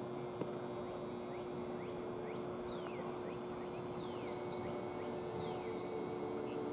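Outdoor ballpark ambience: a steady low hum over a soft background noise, with three high whistles falling in pitch, about a second and a half apart.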